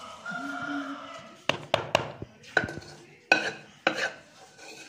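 A spoon knocking and clinking against a plastic tub of pickle: about half a dozen sharp, irregular knocks in the middle and later part.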